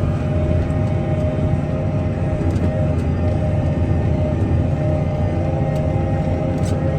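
Fendt 828 tractor's engine running steadily under load, pulling a set of discs across a field, with a constant low hum and a steady whine.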